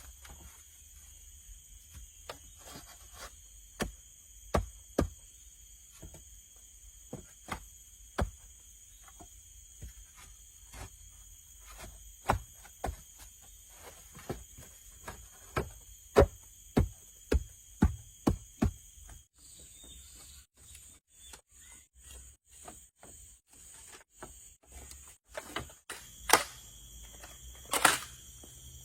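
Steady chirring of crickets or other insects, with irregular sharp knocks, roughly one a second, that come faster near the end.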